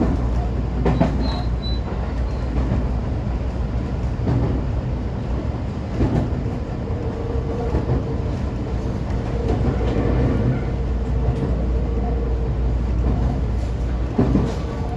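125-series electric railcar running along the line, heard from the cab: a steady low rumble of wheels on rail with a few knocks over rail joints. A steady hum joins about halfway through.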